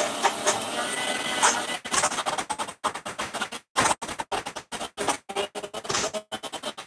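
Electric mixer grinder running, grinding soaked chana dal and peas into a thick paste, then switched in rapid short bursts with brief silent gaps until it stops.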